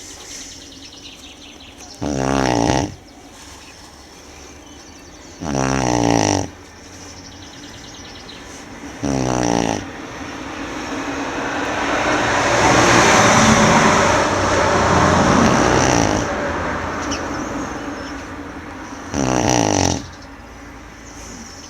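Tibetan Mastiff (do-khyi) snoring in its sleep: four short fluttering snores a few seconds apart. In the middle a broad rushing noise swells for several seconds and fades.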